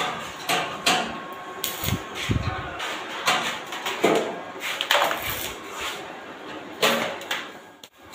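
Electric arc welding on a steel frame: short irregular bursts of crackling arc, struck again and again as tack welds are laid. There is a low thump a little after two seconds in.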